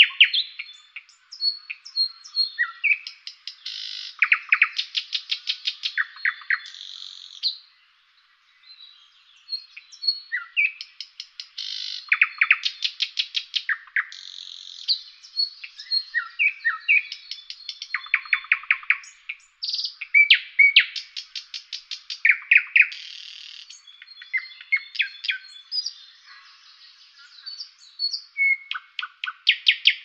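A songbird singing a long, varied song of fast rattling trills and chirps, with short pauses between phrases and one brief break about eight seconds in.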